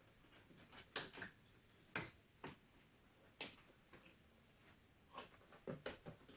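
Faint, scattered clicks and light knocks from hands working on a car door's plastic trim and fittings, about a dozen, the sharpest about one, two and three and a half seconds in and a quick cluster near the end.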